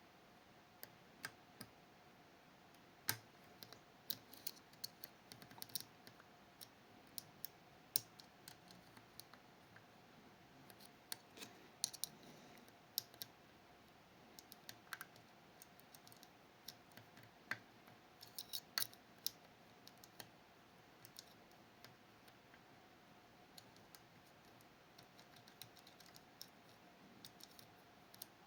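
Faint, irregular clicks and ticks of a lock pick working the levers of a Fichet 484 lever sidebar lock, as the levers are probed and re-set after some have dropped.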